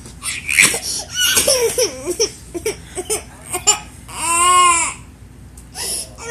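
Toddlers' short squeals and whines, then one long rising-and-falling cry about four seconds in.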